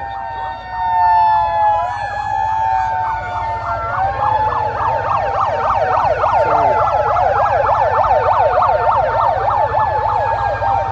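Several megaphone sirens sounding at once: overlapping wails, a fast yelp of about four sweeps a second and a steady high tone.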